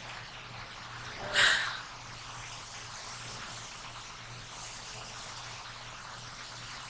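One short sniff from a woman who is crying, about a second and a half in, over a steady low hum and hiss.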